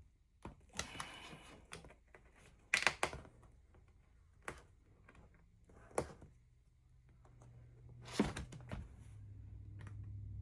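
Irregular clicks, knocks and a short scratchy cut from trimming and handling a corrugated plastic (Coroplast) sign with a craft knife and scissors, with a low hum coming up near the end.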